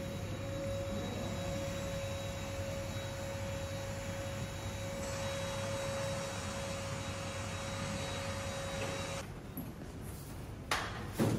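A machine running steadily with a whine over a low hum, cutting off suddenly about nine seconds in, followed by two short knocks near the end.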